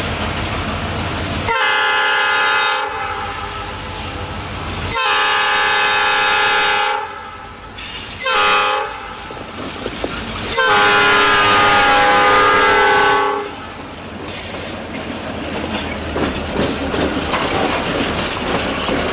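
Air horn of an EMD diesel locomotive sounding the grade-crossing signal: long, long, short, long, each blast a chord of several steady notes. After the last blast the train rumbles past with wheels clattering over the rail joints.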